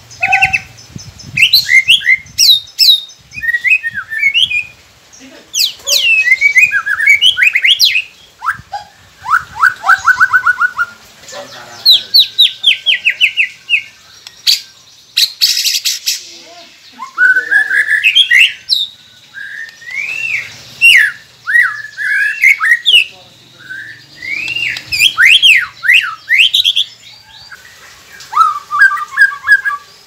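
White-rumped shama singing a long, varied song: clear whistled phrases, swooping slurs and fast runs of repeated notes, broken by short pauses, with a brief harsh rattle about halfway through.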